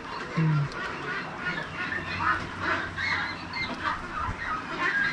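A large flock of ducks calling over one another: many short, overlapping calls.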